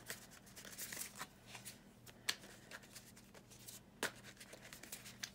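A deck of large, stiff, not yet broken-in tarot cards being shuffled by hand: quiet rustling and flicking of cards, with a couple of sharper snaps about two and four seconds in.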